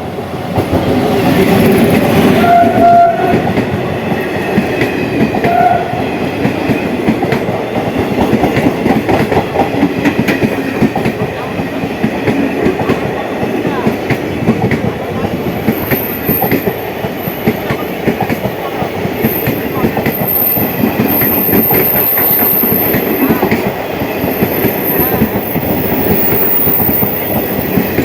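Passenger train of ICF coaches hauled by a WAG-9 electric locomotive, running at speed with a steady clatter of wheels over rail joints. Short horn blasts sound about three seconds in and again near six seconds.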